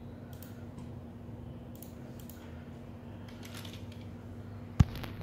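Computer mouse clicking as files are selected and extracted, a few faint clicks and then two sharp, louder clicks near the end, over a steady low hum.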